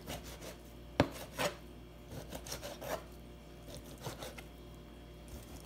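Kitchen knife slicing raw boneless chicken thighs into strips on a plastic cutting board: the blade drawing through the meat and knocking irregularly on the board, the sharpest knock about a second in.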